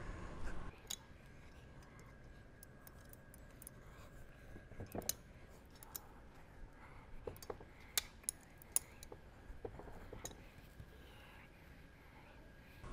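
Faint, scattered metallic clicks and clinks of a wrench on the bolts that hold a Taco FI series pump's intermediate casing to its bearing frame, as the bolts are tightened.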